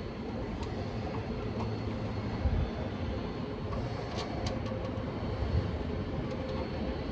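Steady low rumble with a low thump about two and a half seconds in, and a quick run of light clicks from small lock hardware being handled a little past the middle.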